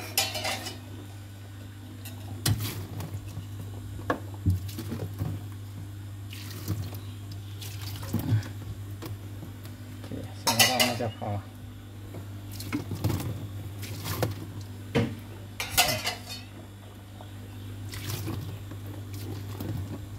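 Metal pot clinking and clattering with splashes as hot water is poured over a refrigerator's freezer evaporator coil, a second round of heating to drive moisture out of the refrigerant circuit. A steady low hum runs underneath.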